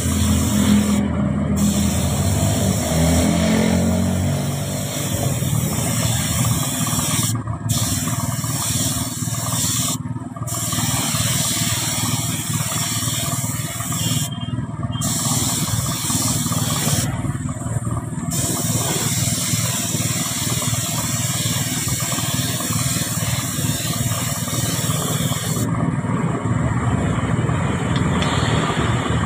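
Gravity-feed air spray gun hissing as it sprays clear coat, the hiss cutting off briefly about five times as the trigger is released and for a couple of seconds near the end. A steady low rumble runs underneath.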